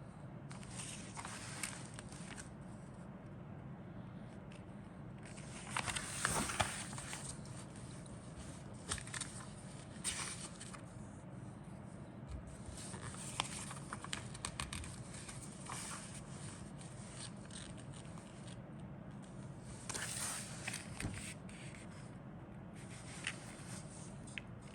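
Plastic model kit parts and their bags being handled, with irregular scraping and crinkling that is loudest about six seconds in and again around twenty seconds. A steady low hum runs underneath.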